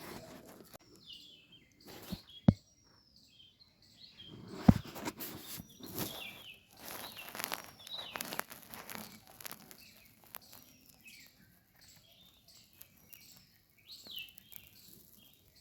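A small bird chirping over and over in short calls that hook downward in pitch, with scuffling noises and two sharp knocks, one about two and a half seconds in and one about five seconds in.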